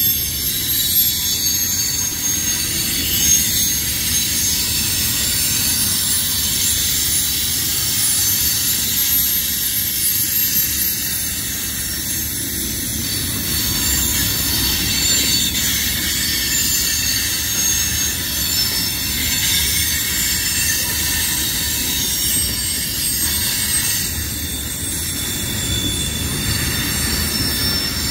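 CSX freight train of covered hopper cars rolling past, its steel wheels screeching on the rails in several high, steady tones over a constant low rumble of wheels on track.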